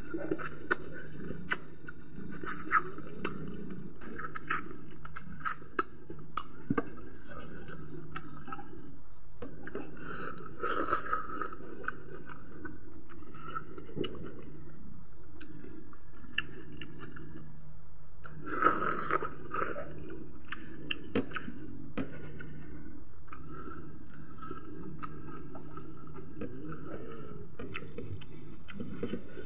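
Close-up eating sounds of chicken leg and rice eaten by hand: wet chewing and lip smacking with many small clicks, and fingers scraping rice across a plate.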